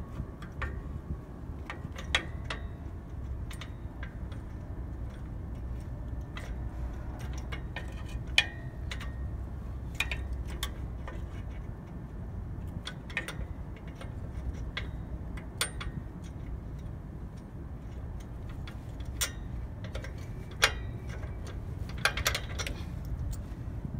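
Scattered sharp metallic clicks and taps of pliers working at a cotter pin on a truck's drum-brake shoe assembly, at irregular intervals over a steady low rumble.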